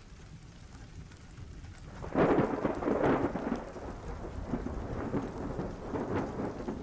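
Thunder rumbling over rain, with a loud roll swelling about two seconds in and slowly dying away.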